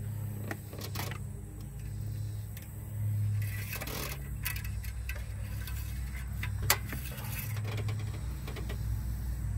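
Scattered light clicks and taps of hands handling parts in a car's engine bay, with one sharper click about two-thirds of the way through, over a steady low hum.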